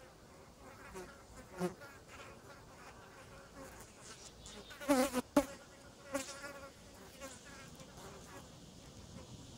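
Green bottle flies buzzing in short, repeated bursts as they fly close by. The loudest buzzes come about five to six seconds in, with one sharp tick among them.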